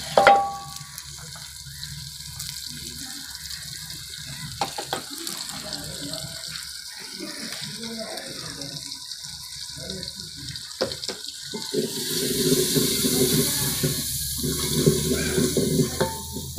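A steel utensil strikes and rings briefly at the start. Then a steady watery splashing follows, with small clinks of steel cookware, and it grows louder for the last few seconds.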